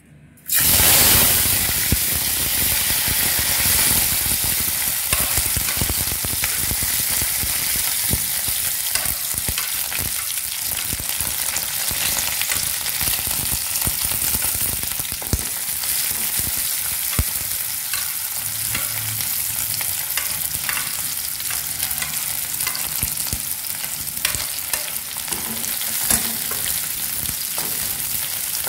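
Hot oil in a wok bursting into a sizzle as curry leaves are tipped in, starting suddenly about half a second in. The frying then goes on steadily with small crackles as sliced onion and garlic cook, and a spoon stirs the pan near the end.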